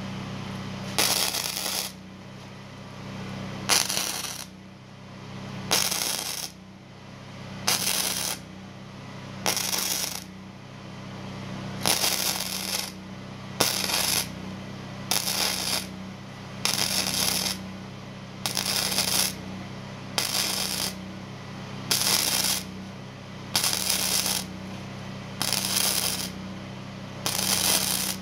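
Gasless flux-core wire welder arcing on thin sheet steel in short stitch welds along a butt joint: about fifteen crackling bursts, each under a second, roughly one every two seconds, with a steady low hum between them. The start-stop rhythm is the welder starting a tack, dragging it, then stopping to let the heat cool so the thin metal doesn't burn through or warp.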